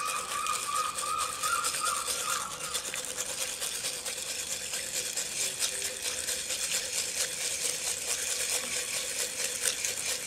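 Lead hollow-point airgun pellets swirled in a glass jar of soapy water: a steady rattle of many small ticks as the pellets tumble against the glass and each other.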